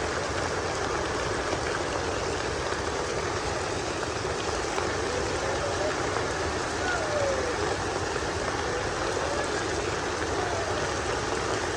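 Steady heavy rain, an even hiss, with a few faint distant voices calling out.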